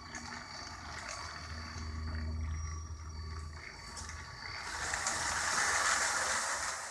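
LEGO 9V train motors running, the train driving along its track with a low steady hum. In the last two seconds a louder rushing noise swells up over it.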